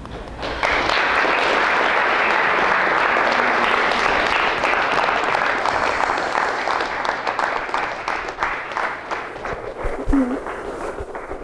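Audience applauding: a dense burst of clapping starts about half a second in, then thins out into scattered individual claps toward the end.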